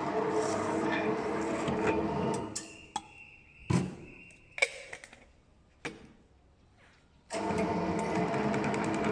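Table-top can seaming machine running with a steady motor hum, stopping about two and a half seconds in. A few sharp clicks and knocks follow, with a brief high steady tone, then the machine starts running again near the end.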